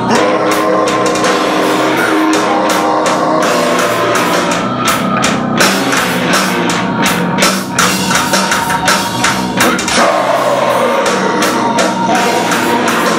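Live rock band playing loudly: electric guitar and bass guitar over drums and cymbals, with a long held high note and a falling glide in pitch about ten seconds in.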